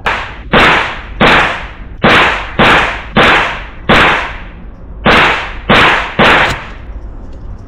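Great Lakes Firearms GL-15 AR pistol, a 7.5-inch-barrel .223 Wylde with a muzzle brake, fired semi-automatically: about nine shots a half to one second apart, with a pause of about a second before the last three. Each shot rings out in the indoor range's echo.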